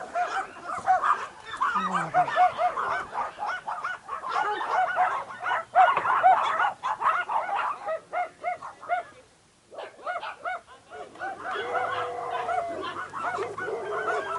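A chorus of many small dogs yapping at once, short high-pitched barks overlapping continuously. It breaks off into a brief lull about nine and a half seconds in, then starts up again.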